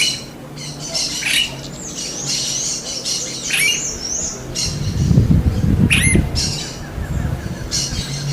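Smooth-billed ani giving high-pitched squealing calls about every one to two seconds, with a wavering chatter of higher notes in between. A low rumble runs through the middle of the stretch.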